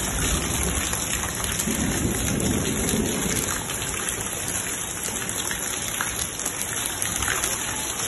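Hail and rain pelting down, a dense steady hiss full of small sharp ticks of stones hitting surfaces. A low rumble underneath eases off about three and a half seconds in.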